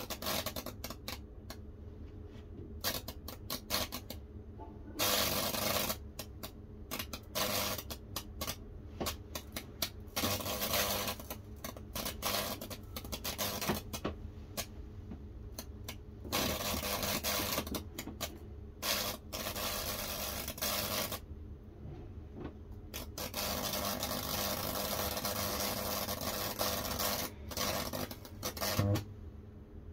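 High-voltage fractal (Lichtenberg) burning on a soaked cedar board: the current crackles and sizzles in irregular bursts, some lasting a second or more, as it burns branching tracks through the wood. A steady low electrical hum runs underneath.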